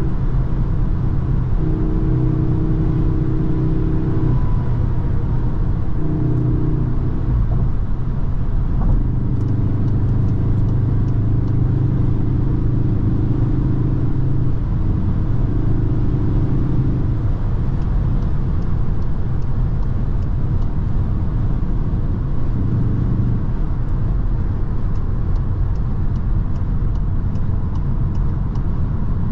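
Cupra Formentor VZ5's turbocharged five-cylinder engine and tyre and road noise inside the cabin at motorway cruising speed, around 140 km/h. The engine drone strengthens and fades several times, weakest in the later part as the car slows a little.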